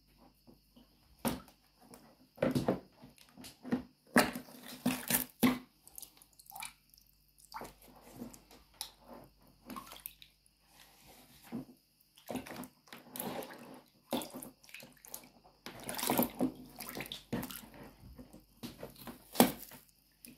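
Water sloshing and splashing in a bucket as a black ankle boot is pushed down into it and worked around, in irregular bursts with short pauses. It is busiest in the last few seconds, with one sharp splash near the end.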